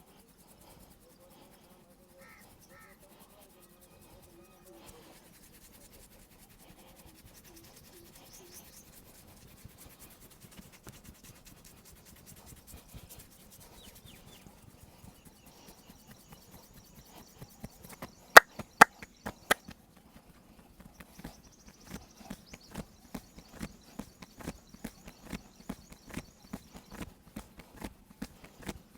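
Hands-on massage: soft rubbing on skin at first, then three sharp, loud snaps a little past halfway, followed by rhythmic slapping strokes about two a second.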